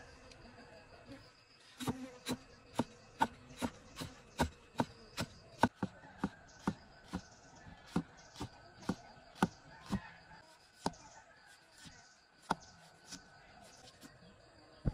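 Steel cleaver chopping shallot and herbs on a thick round wooden chopping block, sharp knocks at about two strokes a second starting about two seconds in, then a few slower cuts near the end. Insects chirr steadily in the background.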